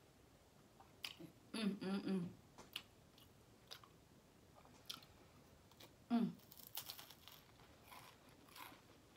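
Crackers topped with crab salad being bitten and chewed, with scattered crisp crunches.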